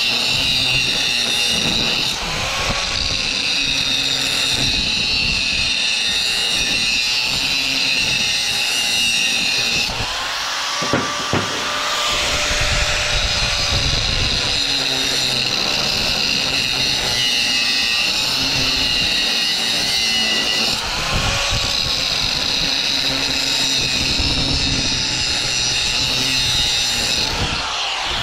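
Grinder cutting through the welded seams of a lighting ballast's metal case: a steady, loud, high-pitched grinding whine whose pitch wavers as the disc bites, easing off briefly a few times.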